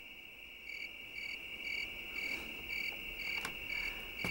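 Crickets chirping: a steady high trill with a regular chirp repeating about twice a second.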